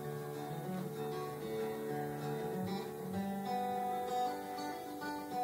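Background music led by a plucked acoustic guitar, several notes held and sounding together.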